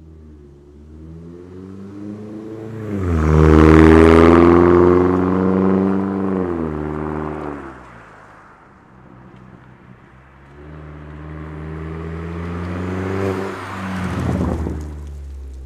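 2014 Chevy Sonic LTZ's 1.4-litre turbocharged four-cylinder through a straight-pipe exhaust with no cat, resonator or muffler: a very deep exhaust note. It accelerates hard, rising in pitch about three seconds in, holds, and eases off around seven seconds. Then it pulls again, rising steadily, and passes close by near the end before fading.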